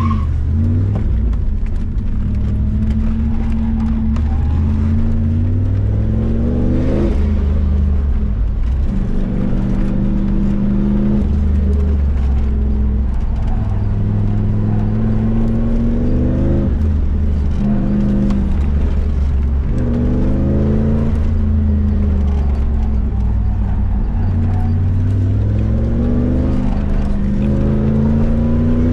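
Third-generation Pontiac Firebird's engine running hard through an autocross course, its pitch climbing under throttle and dropping back again and again.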